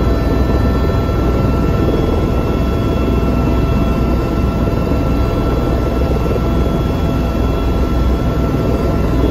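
Helicopter turbine engine and rotor running, heard from inside the cabin: a loud, steady din with a thin, steady high whine over it.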